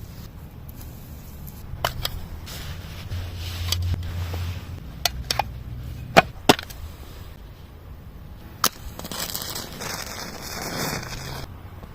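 Sharp clicks and snaps, the loudest a pair about six seconds in, then a hiss lasting about two and a half seconds that cuts off suddenly near the end.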